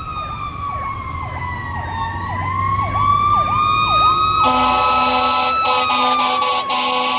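Fire engine running code 3. Its Federal Q2B mechanical siren wails, its pitch sagging about two seconds in and winding back up, over an electronic siren sweeping fast in a yelp about twice a second. From about halfway through, the truck's air horn joins in a series of loud blasts.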